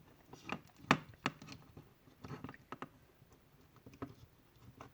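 Light clicks and taps of plastic parts being handled as the battery is fitted into the back housing of a Wahl Magic Clip cordless hair clipper, with the sharpest clicks about a second in.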